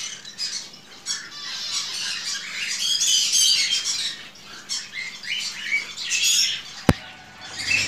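Green-cheeked conures (pineapple and yellow-sided colour forms) squawking and chirping in a run of short, high calls. One sharp knock on the wooden nest box comes near the end.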